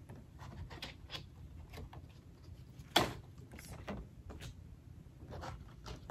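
Letter flash cards being handled and swapped on a wooden card ledge: faint scattered taps and rustles, with one sharper tap about three seconds in.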